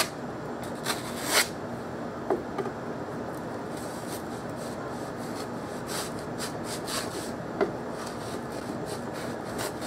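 Plastic sheeting rubbing and scraping against cured expanding foam as it is worked loose from the mould, with a few sharp crackles scattered through.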